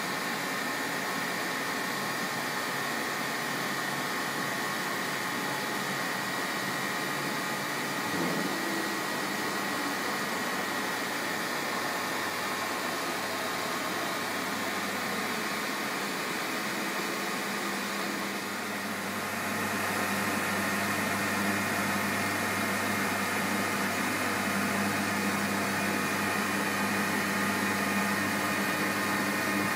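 MAHO MH 700 C CNC milling machine running under power: a steady mechanical hum with several steady whining tones from its motors and drives. About two-thirds of the way through, a steady lower hum joins and the sound gets slightly louder as another drive starts.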